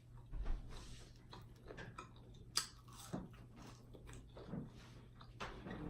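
A person chewing and biting fried chicken gizzards close to the microphone: soft, irregular mouth sounds with a few sharper crunches and clicks.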